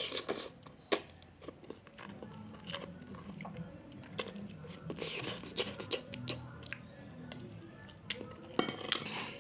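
Close-up eating sounds: chewing mouthfuls of Indomie goreng fried instant noodles, with small clicks of cutlery against a plate, over faint background music.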